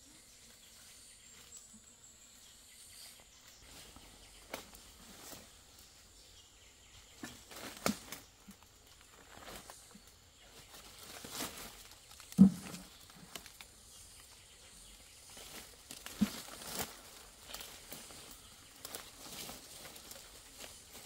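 A person moving through dry leaves and forest undergrowth: scattered footsteps, rustling of brushed plants and twig snaps, with one sharp knock about twelve seconds in.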